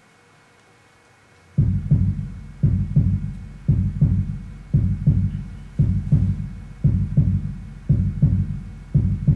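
Loud, low heartbeat sound, a paired lub-dub thump repeating about once a second, starting abruptly about a second and a half in, amplified through loudspeakers.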